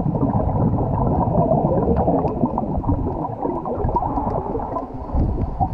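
A diver's exhaled breath bubbling and gurgling underwater, starting suddenly and stopping about five and a half seconds later.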